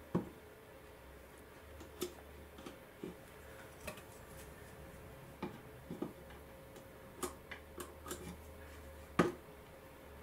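Sharp, irregular clicks and taps of a metal vernier caliper set against and scribing styrene window frames, marking lines on them, with the loudest click near the end.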